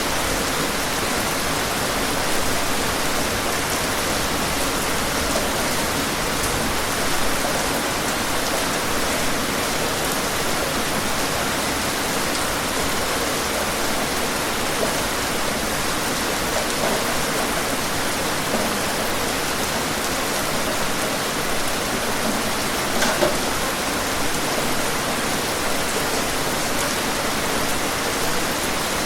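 Steady rain falling on a surface, an even hiss with occasional louder individual drops.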